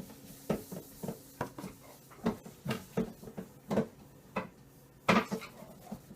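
A utensil clinking and knocking against a bowl while something is mixed, in a run of irregular short strikes about every half second, some ringing briefly.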